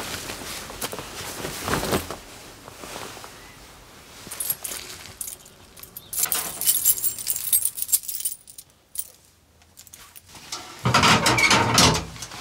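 Foley for a coat: the garment handled and shaken in irregular bursts, fabric rustling with metallic jingling, likely its fittings, with a brief lull and a louder burst near the end.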